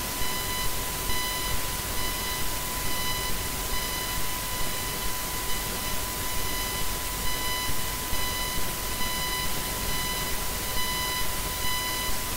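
High-pitched feedback from a failed microphone: a steady, piercing tone with a pulsing on top, over a constant hiss.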